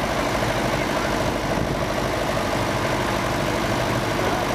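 Mercedes-Benz Unimog 404 engine idling steadily.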